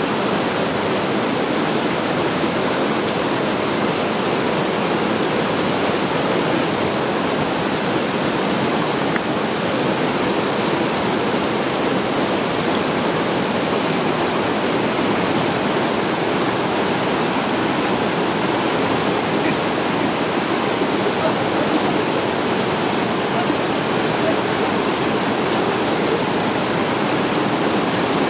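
Shallow mountain stream rushing over and around granite boulders: a steady, loud rush of water that does not let up.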